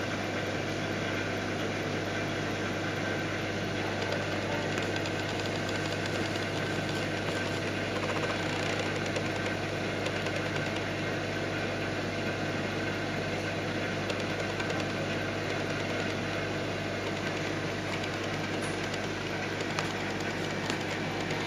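Red Sea Max 130D reef aquarium's built-in pumps and equipment running: a steady low hum under an even hiss of moving water.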